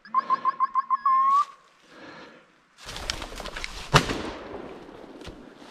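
Hunting dog's beeper collar sounding its point alarm: a quick run of about six beeps and a longer swooping tone, which signals the dog is on point. About three seconds in, rustling and crackling through leaves and brush, then a single loud shotgun shot about four seconds in.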